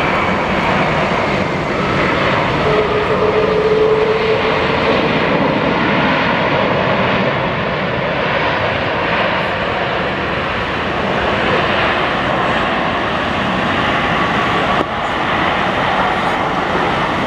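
Boeing 767-300ER airliner's jet engines running loud on reverse thrust as it decelerates down the runway just after touchdown: a steady heavy rush of engine noise. A brief whine sits in it from about three seconds in, and it eases off slightly toward the end.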